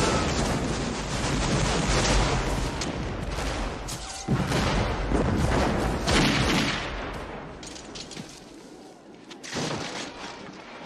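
Movie battle sound effects of Civil War musket fire in crowded volleys, mixed with heavy booms of explosions. The firing dies down over the last few seconds.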